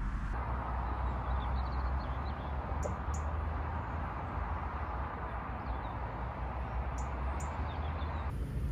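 Steady low rumble and hiss of road traffic, with a few faint, high bird chirps scattered through it.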